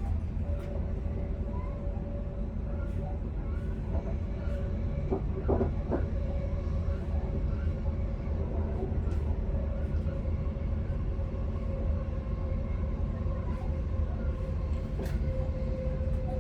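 Electric commuter train running, heard from the driver's cab: a steady low rumble of wheels on rail with a steady whine over it. A few short knocks come about five to six seconds in, with scattered faint clicks.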